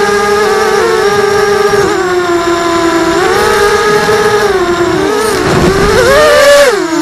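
Racing quadcopter's electric motors and propellers whining in flight, heard close up from the camera on the drone. The pitch holds fairly steady, rises and wavers about six seconds in, then drops sharply near the end.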